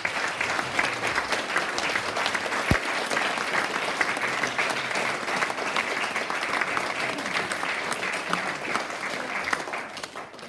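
Audience clapping in a hall, a dense steady applause that dies away near the end, with one brief low thump about three seconds in.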